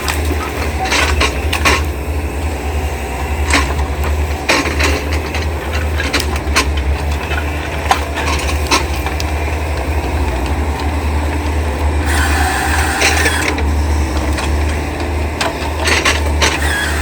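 Heavy-machinery diesel engine running steadily, typical of an excavator at work, with repeated sharp knocks and clunks. A brief high squeal comes about twelve seconds in.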